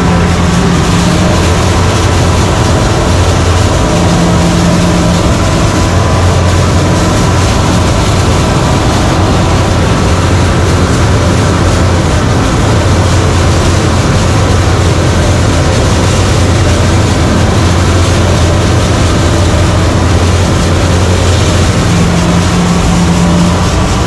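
Rice combine harvester at work, heard from on board: its engine and threshing machinery make a loud, steady drone with a constant low hum.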